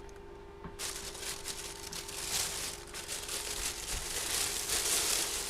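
Packaging rustling and crinkling as it is handled, starting about a second in, over a faint steady hum.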